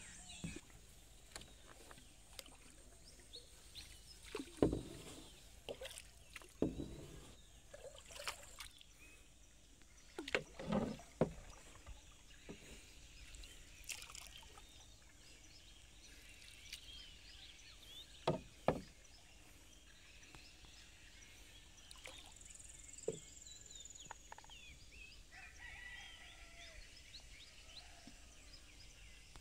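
Wooden paddle strokes from a small river boat, a splash or knock every few seconds at an uneven pace. Faint bird and insect chirping sits in the background.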